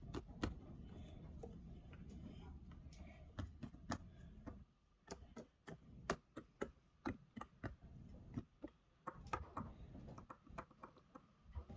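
Irregular light clicks and taps, some in quick pairs, over a low rumble that stops about four and a half seconds in.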